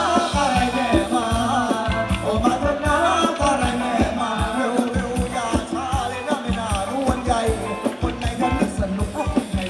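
Live band playing Thai ramwong dance music: a singer over a fast, steady drum beat.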